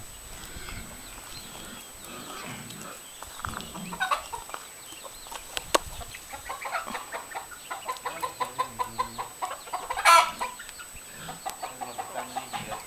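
Hens clucking in a quick run of short, repeated notes, with one loud, sharp call about ten seconds in.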